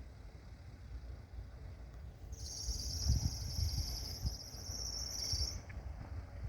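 A high-pitched insect trill, the stridulation of a grasshopper or bush cricket, lasting about three seconds. It starts a couple of seconds in and cuts off near the end, over a steady low rumble.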